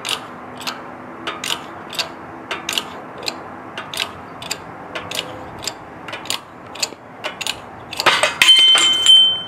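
Shop press's hydraulic bottle jack being pumped, each stroke clicking about twice a second, while it forces a cartridge wheel bearing out of a trailer hub. Near the end a louder burst of cracking with a metallic ring as the bearing breaks loose under load.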